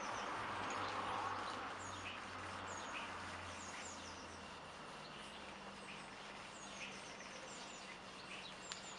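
Small birds chirping repeatedly in the background, with a soft rustling hiss that is louder in the first few seconds and then fades.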